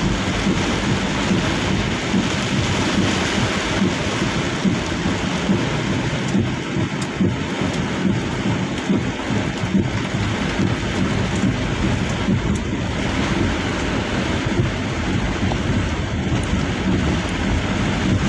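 Heavy rain beating on the roof and windshield of a Daihatsu Gran Max on the move, heard from inside the cabin: a steady, dense hiss with a low rumble underneath.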